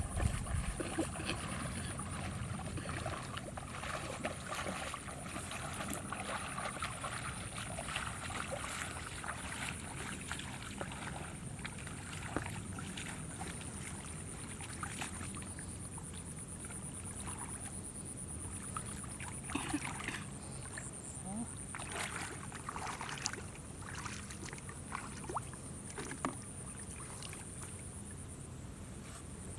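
Water sloshing and splashing with scattered short knocks, over a steady high-pitched whine.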